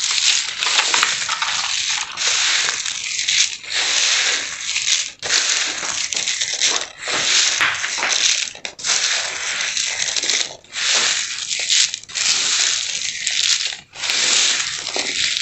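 Roasted peanuts rubbed and squeezed by hand on a woven bamboo sieve: a dense, papery crackling as their skins loosen and come off. It goes in uneven strokes with brief pauses.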